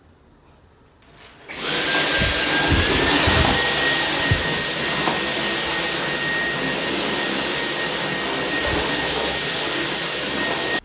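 An electric household appliance's motor switching on, its whine rising briefly as it spins up and then running steadily with a rushing noise, before cutting off abruptly.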